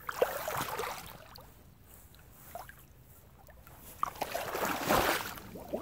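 Pond water sloshing and gurgling around a wader's legs as a person wades in the shallows. A short stir comes right at the start, it goes quiet, and a louder stretch of splashing follows from about four seconds in.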